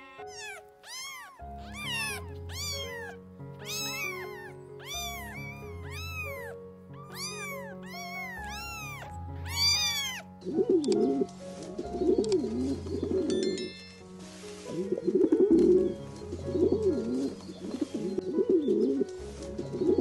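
A cat meowing over and over in short, high, rising-and-falling calls, about two a second, for roughly the first half. In the second half a Eurasian collared dove coos in repeated low phrases. Background music plays throughout.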